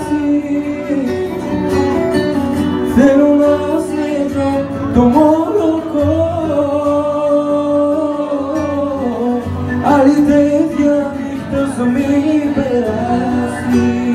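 Male vocalist singing a melody live through a microphone over instrumental backing, with long held notes that bend in pitch.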